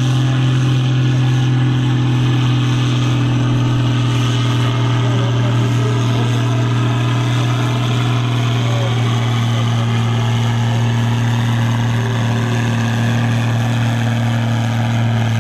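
Case IH 1455 XL tractor's diesel engine running loud and steady at an unchanging speed.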